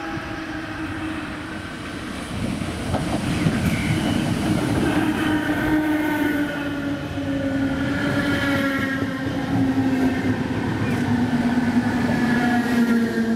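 Irish Rail DART 8100-class electric multiple unit running through the station at speed. Wheels rumble on the rails, and a whine slowly drops in pitch. It gets louder a couple of seconds in as the train reaches the platform and passes close by.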